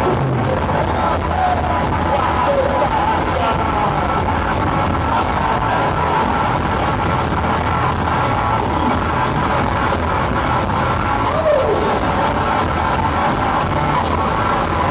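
Live psychobilly band playing loud and without a break: electric guitars over a driving drum beat.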